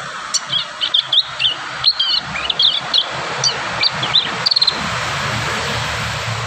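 Young prinias practising their song: a run of quick, high chirps and short trills lasting about four seconds, which stop shortly before the end, over a steady background hiss.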